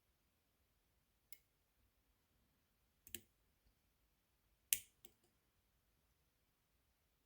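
Faint, sharp metallic clicks of a pick working the pins of a small dimple camlock under very light tension. There are about five isolated clicks a second or so apart, with two close together near the middle and the loudest about two-thirds through.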